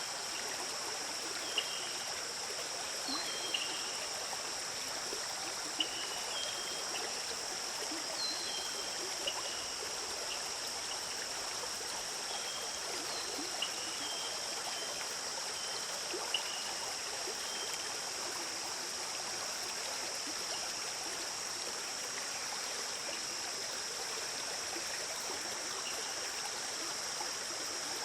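River water flowing steadily, with a constant high-pitched drone and short high chirps scattered through the first two-thirds.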